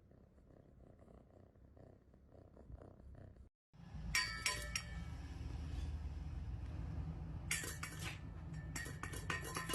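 A cat purring faintly as a soft pulsing low rumble. After a brief break comes a louder low rumble with three short runs of sharp clinking and tapping.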